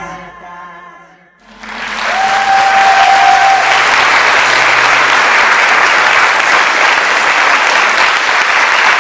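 The song's last notes fade out, then audience applause breaks out about a second and a half in and continues steadily, with one long whistle over it shortly after it starts.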